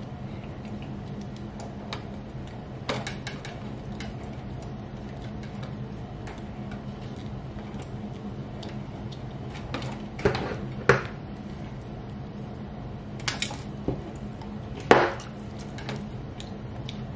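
Stripped wires and small plastic push-in wire connectors handled by hand: scattered light clicks and rattles, a few sharper ones in the second half, over a steady low hum.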